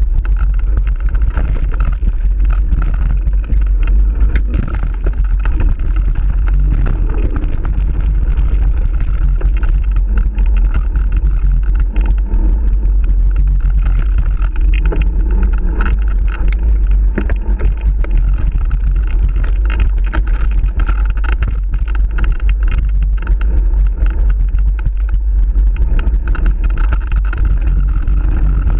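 Steady wind rumble over an action camera's microphone during a mountain bike ride on a dirt trail, with constant small rattles and knocks from the bike and camera jolting over the rough ground.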